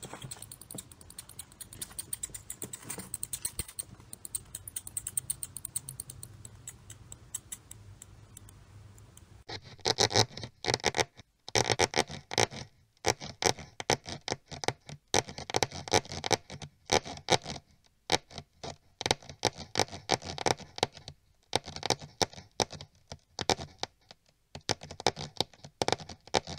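Sound effect of mice scurrying on a floor: rapid pattering and scratching of small claws. It is faint for the first third, then much louder from about ten seconds in, in quick runs broken by short pauses.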